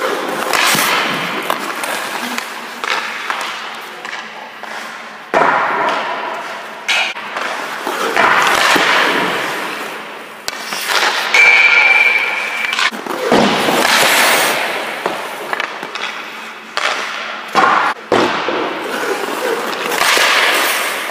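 Ice hockey skates carving and scraping across the ice, broken by several sharp cracks and thuds as pucks are shot off a stick and stopped by a goaltender's pads.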